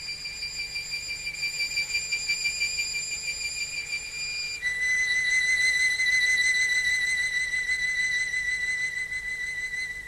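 Solo violin holding two long, high notes with vibrato: the second, slightly lower note comes in about halfway and slowly fades away near the end.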